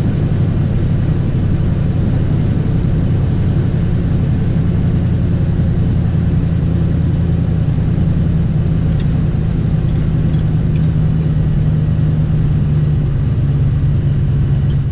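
Race pickup's engine running steadily at low revs, a deep, even drone heard from inside the roll-caged cab.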